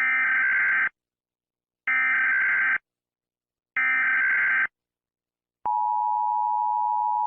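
Emergency Alert System tones: three bursts of the SAME digital header, a harsh warbling data buzz just under a second long each with about a second's gap between them. Near the end comes the steady two-tone EAS attention signal, which announces an alert message.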